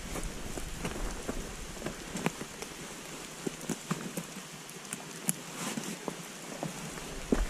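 A rucksack being packed and strapped up close to the microphone: a steady rustle of nylon fabric with scattered sharp clicks and knocks from straps and buckles, and a louder knock near the end.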